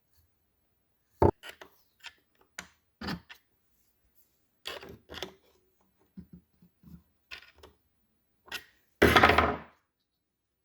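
Transmission parts and hand tools being handled on a workbench: a sharp knock about a second in, scattered light clicks and knocks, and a louder clatter lasting under a second near the end.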